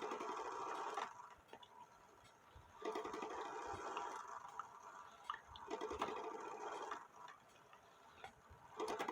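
Seikosha time-and-strike wall clock striking on its gong during a test of the strike side: four strokes about three seconds apart, each ringing for a second or so. The strike side is working.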